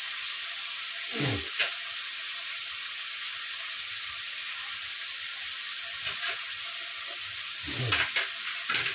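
Chopped onions, tomatoes and green chillies sizzling steadily in hot oil in a kadai, with ginger-garlic paste just added. A couple of brief falling swooshes break in about a second in and near the end.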